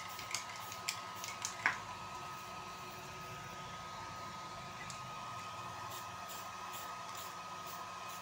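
Hair dryer running steadily with a constant whine, blowing on freshly sprayed paint to dry it. A few sharp clicks in the first two seconds, the loudest just under two seconds in.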